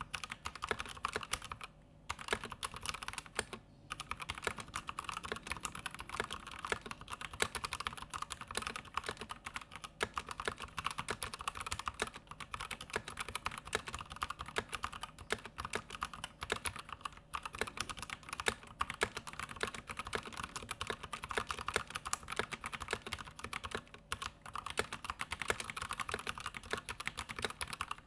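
Typing on a Vortex VX87 mechanical keyboard fitted with its stock Outemu Red switches: a fast, continuous clatter of keystrokes, with brief pauses about two and four seconds in.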